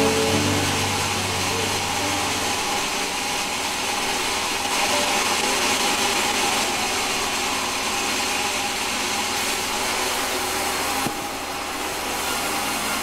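Large vertical band saw running steadily, its blade cutting through a board of timber.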